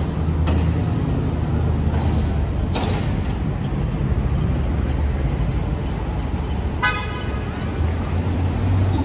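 City street traffic: a steady low engine rumble from nearby vehicles, with one short car horn toot near the end.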